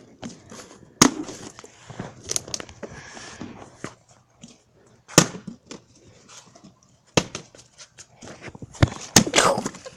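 Several sharp knocks and clatters of a partly filled plastic water bottle being flipped and landing on a concrete sidewalk, the loudest about five seconds in, with scuffing between them.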